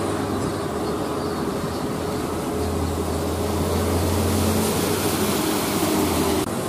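Diesel engine of a loaded Hino 500 dump truck pulling uphill: a steady low drone that grows louder about two and a half seconds in as the truck nears, over a hiss of tyres on the wet road.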